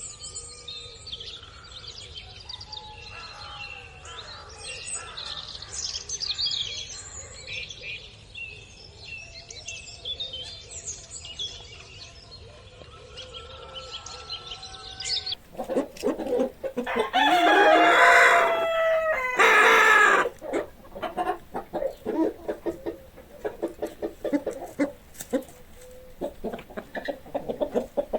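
Small birds chirping and singing; about halfway through the sound changes abruptly to a rooster crowing loudly, followed by chickens clucking in quick repeated notes.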